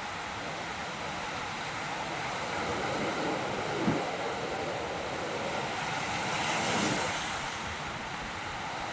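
Ocean surf washing over a rocky shore: a steady rushing hiss that swells twice, most strongly around six to seven seconds in, with one brief thump about four seconds in.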